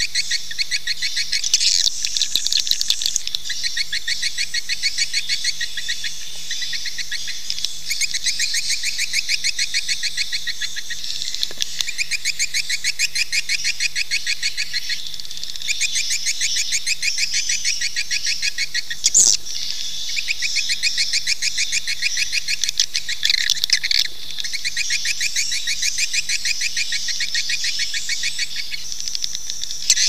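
Recorded swiftlet calls: dense, rapid, high-pitched twittering chirps, many a second, at a steady level. This is a swiftlet lure call track, played in swiftlet nesting houses to draw the birds in to roost and nest.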